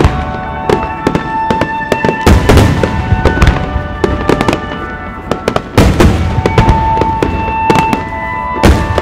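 Aerial firework shells bursting: deep reports with many sharp crackles and pops, the heaviest about two, six and nine seconds in. Music with long held notes plays underneath.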